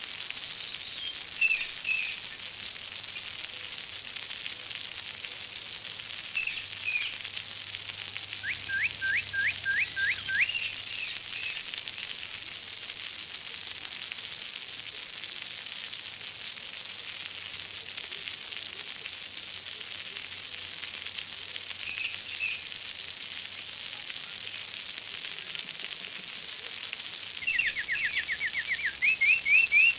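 Steady hiss of splashing, running water. Quick rising whistled chirps come in now and then: a run of about six around ten seconds in, and a denser run near the end.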